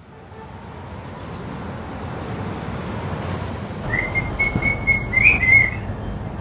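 Background street rumble like distant traffic, fading in and growing, with a high steady whistle lasting about two seconds near the end.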